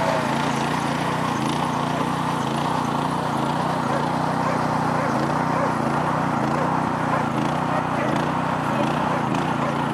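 A steady low engine hum under a constant wash of outdoor noise, unchanging throughout.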